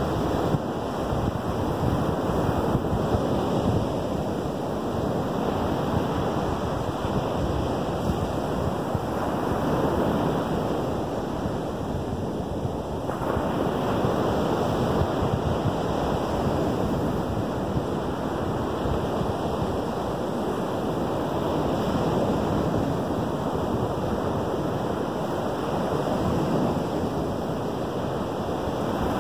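Lake Michigan surf breaking and washing up a sand beach: a steady rush that swells and eases every several seconds as each wave comes in. Wind rumbles on the microphone.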